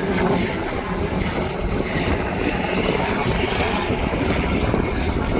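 Steady drone of an aircraft flying nearby, mixed with wind rumbling on the microphone.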